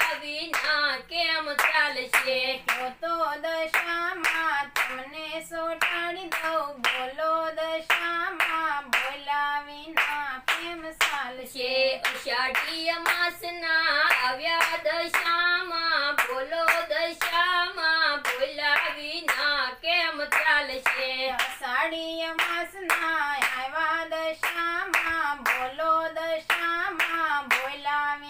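A woman singing a Gujarati devotional song (bhajan) to Dasha Maa, with no instruments, only hand-clapping keeping time about twice a second.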